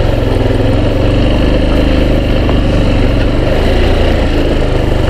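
Yamaha XTZ 250 Lander's single-cylinder engine running at steady revs as the bike is ridden along.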